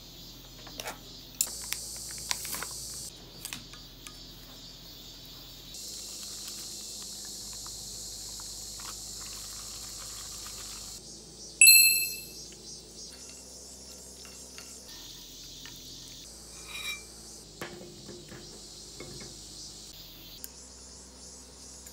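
Kitchen sounds of seaweed noodles being mixed with sauce in a glass measuring cup: scattered light taps and clicks, and about halfway through one loud ringing clink of a utensil against the glass.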